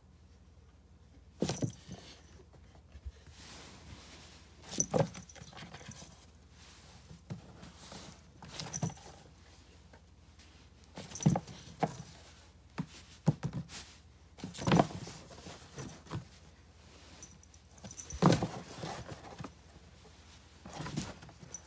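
A kitten moving about on a hard floor: scattered light thumps and pattering from its paws at irregular moments, a dozen or so short bursts with quiet gaps between.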